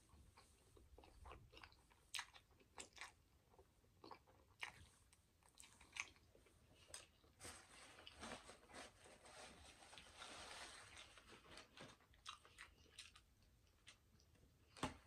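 Quiet close-miked mouth sounds of a person eating creamy pasta: wet chewing, lip smacks and soft clicks. A paper napkin rustles against the mouth from about eight to eleven seconds in, and a sharper bite sounds just before the end.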